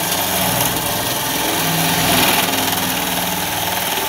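Cordless drill running steadily under load, a hole saw cutting through the aluminum fan beam and patio-cover panel, the motor hum held under a harsh cutting hiss.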